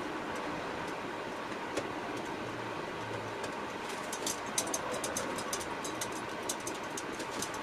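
Small, sharp clicks and light metallic taps from fingers working clock parts at a grandfather clock's dial, sparse at first and coming thick and fast from about halfway through, over a steady background hiss.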